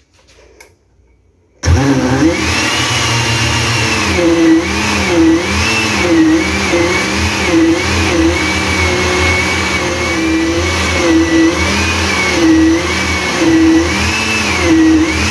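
Oster countertop blender switched on about a second and a half in, its motor then running steadily while churning a thick batter of ripe plantain, milk and flour. The motor's pitch rises and dips again and again, about once a second, as the thick load turns over in the jar.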